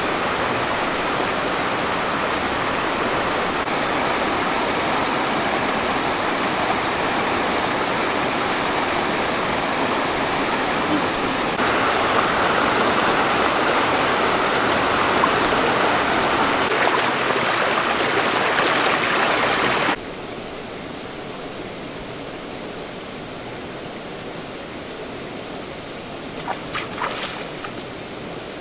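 Steady rush of running stream water, cutting abruptly to a quieter flow about two-thirds of the way through. Near the end a few brief splashes, feet wading in the shallow stream.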